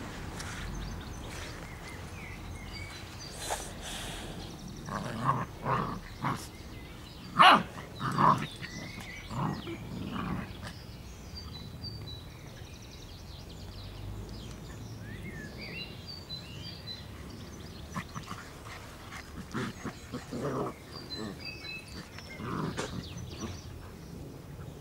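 Six-week-old Irish setter puppies playing with a cocker spaniel, making short dog noises in bursts, growls and small barks. The bursts come in two clusters, the loudest about seven to eight seconds in, with a second, quieter cluster near the end.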